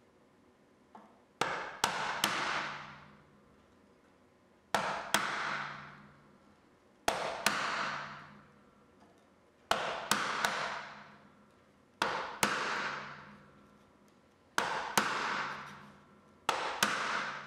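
Brass-headed mallet striking a bench chisel held upright in a knife line in hardwood, chopping down the wall of a stopped groove. Short groups of two or three sharp taps every two to three seconds, each group trailing off in a ringing tail.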